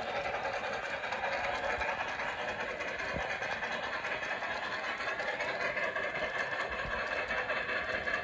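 G-scale model train, a streamlined Garratt locomotive hauling a long freight consist, running steadily on the garden-railway track: an even rolling rattle of metal wheels on rail and the drive motor. A few soft low thumps stand out.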